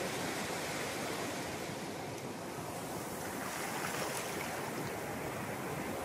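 Surf on a sandy beach: waves breaking and their wash running up over the sand, a steady rush of water.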